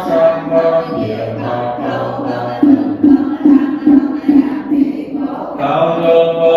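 Vietnamese Buddhist chanting: voices reciting a sutra or mantra in a steady chant, with a run of even beats about three a second in the middle.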